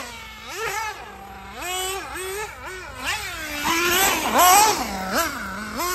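Radio-controlled buggy's motor whining as it is driven, its pitch rising and falling over and over as the throttle is worked on and off.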